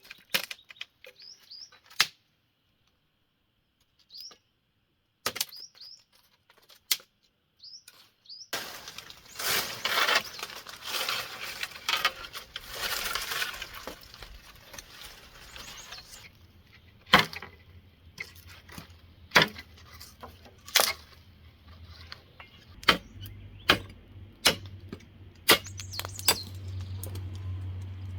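A few short bird chirps and scattered clicks, then several seconds of dense rustling, followed by a run of sharp knocks and clinks of objects being handled, with a low steady hum coming in near the end.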